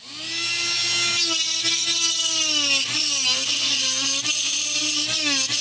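Dremel rotary tool with a flexible-shaft handpiece, spinning up and cutting into a plastic panel. A steady high whine that sags in pitch as the bit bites in, about three seconds in and again near the end.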